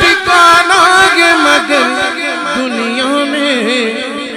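Solo male naat reciter singing a long, drawn-out melismatic phrase into a microphone through a loudspeaker system, the voice wavering on held notes. About two seconds in, the pitch steps lower and holds.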